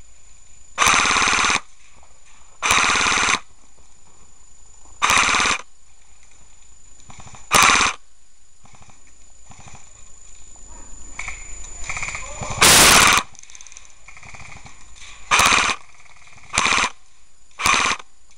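Bursts of rapid fire from skirmish-game guns, eight short bursts each under a second, spaced unevenly; the loudest comes about two-thirds of the way through.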